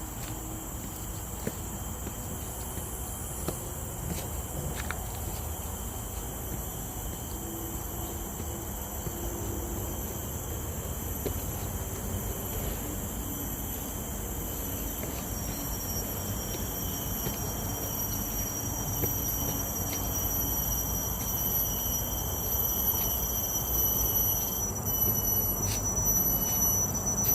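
Tropical forest insects singing in a steady high-pitched drone of several thin tones, growing louder toward the end, over a low rumble.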